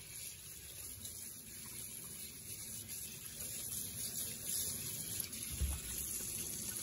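Tap water running steadily into a stainless steel sink while hands rinse raw meat under the stream.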